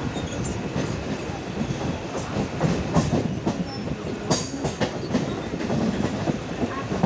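Mumbai suburban local train running, heard from on board at the open doorway: a steady rumble and rattle, with the wheels clattering irregularly over the rail joints. A brief high hiss comes about four seconds in.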